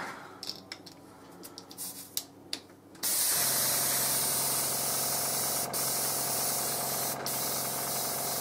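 Light handling clicks, then about three seconds in an airbrush is triggered and sprays a steady hiss of compressed air, purging it after cleaning, with a low steady hum underneath.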